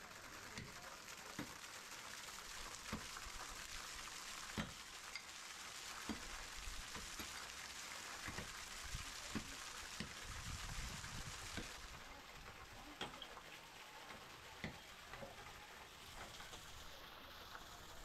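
Waterfall water splashing steadily over rock, with pickaxes striking the wet stone in irregular sharp blows about a second or so apart as the rock is cut into a basin.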